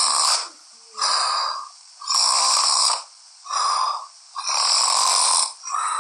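A man snoring loudly, with rough, noisy snores coming about once a second and short quiet gaps between them.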